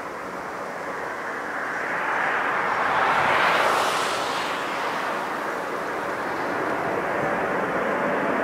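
Four-engine Airbus A340 jet airliner climbing out at takeoff thrust, its engine noise swelling to a peak about three to four seconds in as it passes close overhead, then easing and building again.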